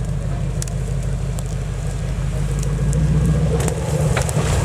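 Off-road competition vehicle's engine running with a steady low rumble that grows a little louder about three seconds in, with scattered clicks and knocks over it.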